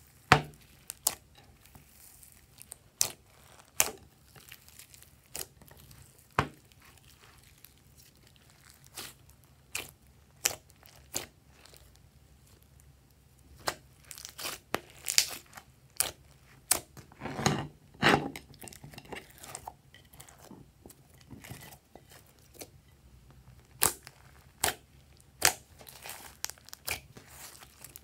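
Hands kneading and squeezing slime mixed with clay, glitter and sequins, giving irregular sticky pops and crackling clicks, busiest around the middle.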